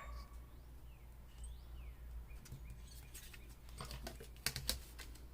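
Faint scratchy strokes of cutting and handling cardboard, ending in two sharp clicks about a second before the end.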